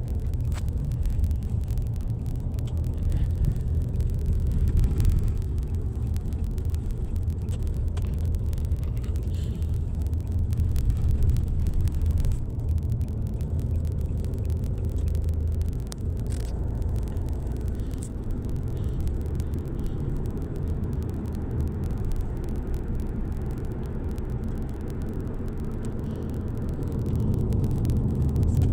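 Steady low rumble of a car on the move, with no change in pitch.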